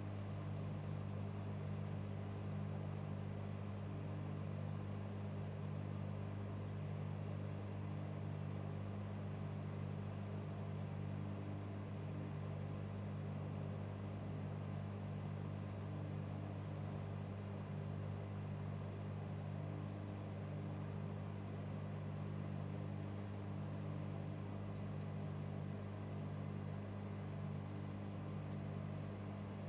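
Microwave oven running: a steady low electrical hum with a hum-tone that keeps cutting in and out about once a second.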